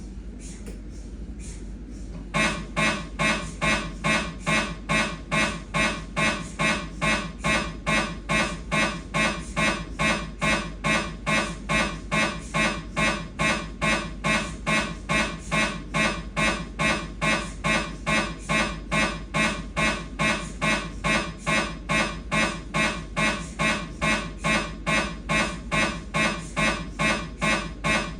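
Siemens MAGNETOM Lumina 3 T MRI scanner's gradient coils. After a short pause with only a low hum, a T2-weighted coronal STIR turbo spin echo sequence starts about two seconds in. It runs as a steady rhythm of loud, pitched buzzing pulses, about two a second.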